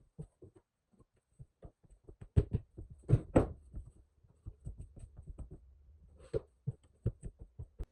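Irregular light knocks and taps, with a few louder knocks about two and a half to three and a half seconds in and again past six seconds.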